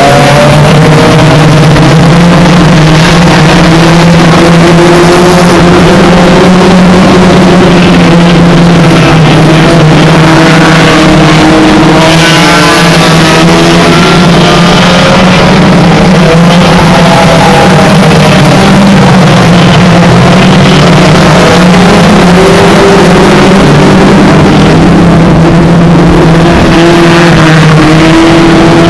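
Several hot rod race car engines running hard as the pack laps a shale oval: a loud, steady drone whose pitch wavers as the cars ease off and accelerate through the bends.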